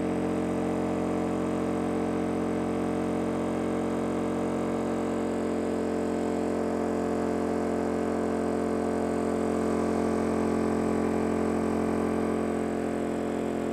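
Westinghouse iGen2200 inverter generator's small four-stroke engine running steadily under a high electrical load, a constant drone with a slight shift about five seconds in and a little louder for a few seconds near the end.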